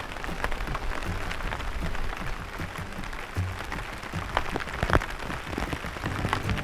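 Rain falling, with single heavy drops clicking sharply now and then, the loudest about five seconds in, over quiet background music.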